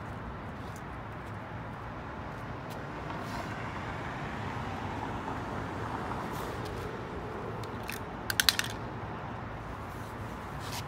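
Steady street traffic noise that swells as a car passes in the middle. About eight seconds in comes a quick clatter of four sharp clicks from spring clamps being handled on the concrete pavement.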